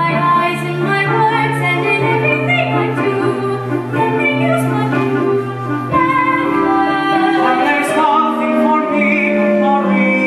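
A man and a woman singing a slow love duet in musical-theatre style over instrumental accompaniment, with long held low notes that change about two and six seconds in.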